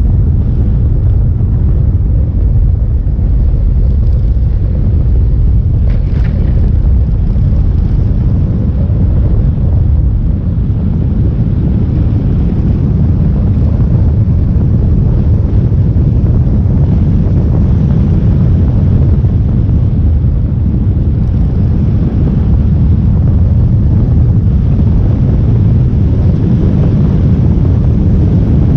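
Steady low wind and road rumble on the microphone of a moving motorcycle.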